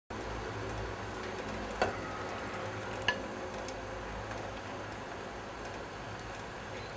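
Steady hiss of a pot of soup at the boil, with two sharp clinks a little over a second apart, as of a ladle striking the pot or bowl.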